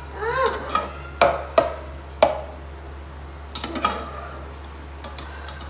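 A spoon stirring frying onions in a metal pot, knocking sharply against the pot three times in the first couple of seconds, then lighter clinks and scrapes. A steady low hum runs underneath.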